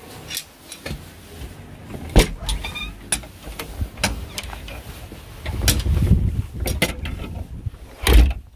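A front door being unlocked and opened: a run of sharp metal clicks and knocks from the lock and handle, the loudest about two seconds in, then a low rumble and one more heavy knock near the end.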